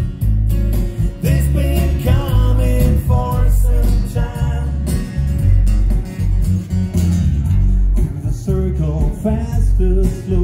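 Live acoustic guitar and male singing played over a PA system, with a strong low end.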